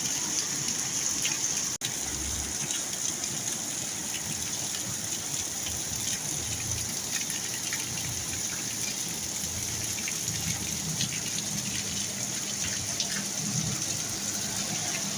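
Heavy rain pouring steadily, with water gushing and scattered drops ticking. A low hum comes in during the last few seconds, and the sound cuts out for an instant about two seconds in.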